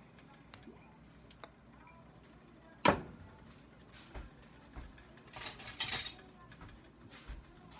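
Kitchen cookware or utensils clinking once, sharply, about three seconds in, with a few faint ticks around it. A short burst of rustling follows about two and a half seconds later.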